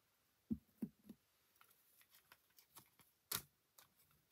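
Small desk-handling sounds of a clear acrylic stamp block and cardstock on a tabletop: a few soft thumps about half a second to a second in, faint ticks, and one sharp click a little after three seconds.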